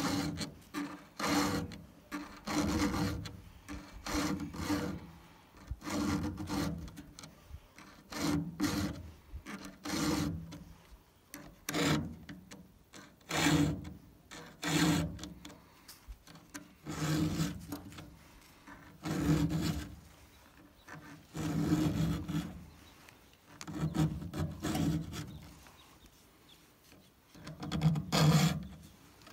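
Hand filing of a Stihl chainsaw chain: a round file drawn across the cutting teeth to sharpen them. About twenty strokes, roughly one a second in an uneven rhythm, with the loudest near the end.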